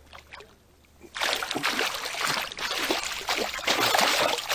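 Water splashing and churning, starting suddenly about a second in and going on steadily, as a hooked pickerel is brought in to the boat.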